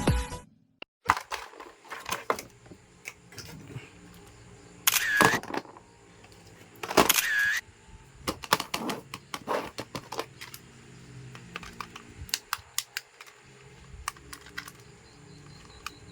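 Irregular clicks, knocks and scrapes of a plastic action figure and its packaging being handled, with two louder scraping bursts about five and seven seconds in.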